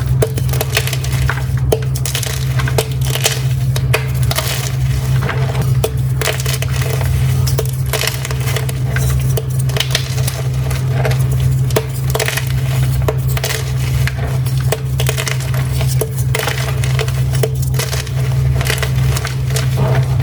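Blocks of gym chalk being crushed and crumbled, a rapid run of dry crunches and crackles that continues throughout, over a steady low hum.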